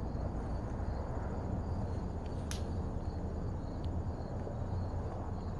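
Outdoor lakeside ambience: a steady low background noise with faint high insect trilling, and a single light click about two and a half seconds in.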